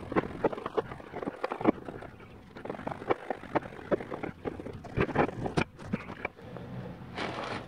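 Metal 700R4 transmission parts from the low/reverse roller clutch clinking and scraping as they are wiped with a rag and handled on the workbench, in short irregular knocks. A brief hiss comes near the end.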